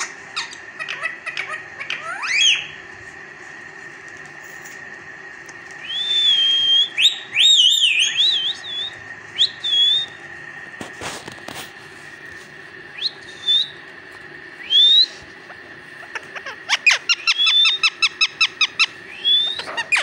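Pet parakeet whistling: scattered short rising whistles and glides, with a quick run of about a dozen short, clipped notes near the end.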